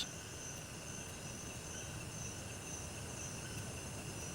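Steady chorus of insects in tropical forest, a continuous high-pitched drone with no breaks.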